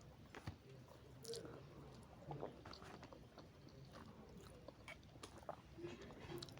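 Faint chewing of noodles, with scattered soft mouth clicks and smacks.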